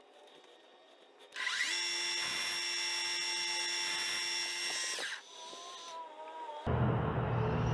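Metal lathe spindle starting up with a gear whine that climbs to speed, running steadily for about three and a half seconds while a boring bar takes a pass inside the part's bore, then switched off and whining down as it coasts to a stop. A loud low hum with rustling noise comes in near the end.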